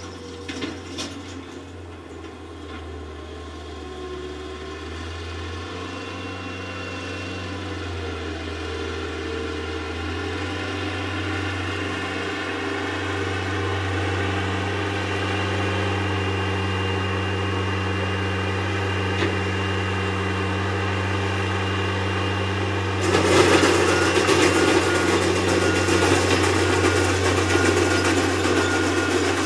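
Skid-steer loader engine running steadily, growing louder as the machine comes closer. About three quarters of the way through the sound jumps suddenly louder, with a rushing noise on top of the engine.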